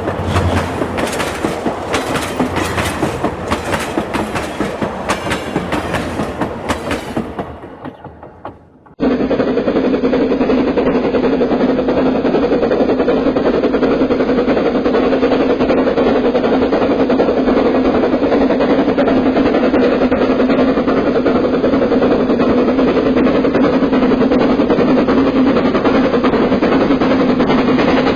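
Train sound effect: wheels clattering over rail joints, fading away over the first eight seconds or so. About nine seconds in, a different steady, dense rumble with two held hum tones cuts in abruptly and carries on evenly.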